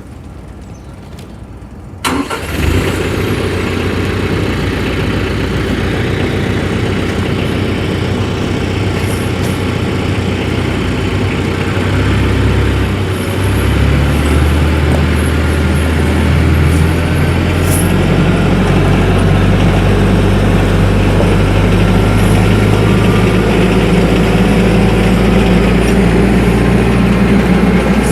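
Compact tractor's diesel engine starting about two seconds in, then running steadily, its pitch shifting a few times as the revs change.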